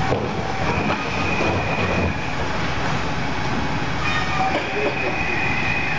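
Machinery running: a steady rumbling clatter with a faint high whine that comes and goes, stopping about two seconds in and returning about four seconds in.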